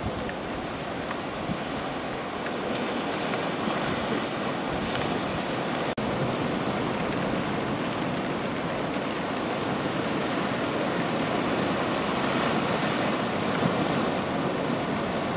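Sea surf washing against a rocky volcanic shore: a steady rushing of waves, with some wind.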